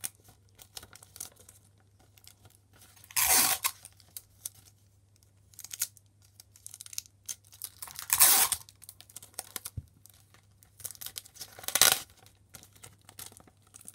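Clear sticky tape pulled off the roll in three short rips, with paper and tape crinkling between them as pieces are pressed on.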